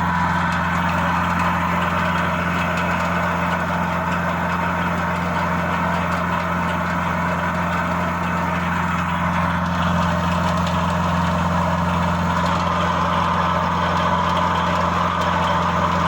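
Industrial aeration air blower for an effluent treatment plant running steadily, with a constant low hum under an even rush of air.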